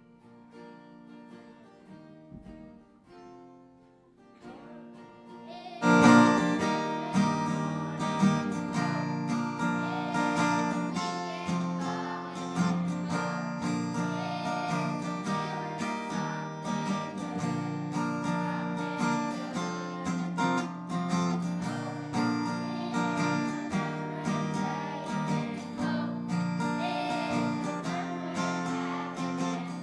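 Live guitar-led music. A soft, sparse picked introduction plays for the first six seconds or so, then the full strummed accompaniment comes in loudly and carries on.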